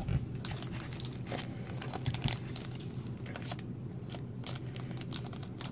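Crinkling plastic wrapper of a toy blind pack being handled and opened: an irregular run of small crackles and clicks.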